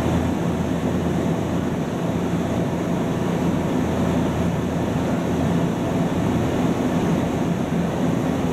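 Steady hum of a Nankai 'Kōya' limited express electric train standing at the platform with its onboard equipment running, holding a few steady low tones over even station noise.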